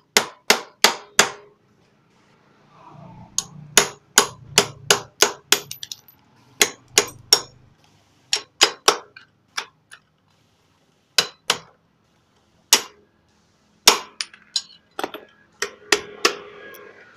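A hammer striking an old screwdriver ground into a chisel, cutting a link out of a motorcycle drive chain. The metal-on-metal blows are sharp and ringing and come in quick runs of several strikes, about three a second, with short pauses between runs.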